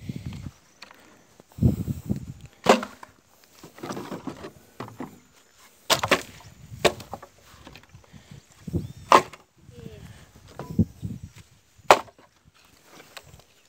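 Pieces of dry firewood being unloaded and tossed onto a pile, knocking against other logs in about six sharp wooden clacks with shuffling between them.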